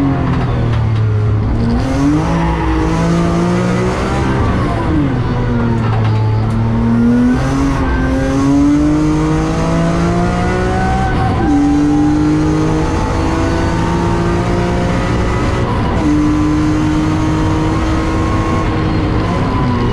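BMW E46 M3's 3.2-litre S54 straight-six, heard from inside the cabin on a track lap. Its pitch climbs under acceleration and falls away under braking and at gear changes, several times over.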